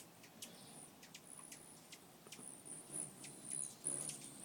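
Hummingbirds giving faint, very high-pitched short chips, irregular, about two a second.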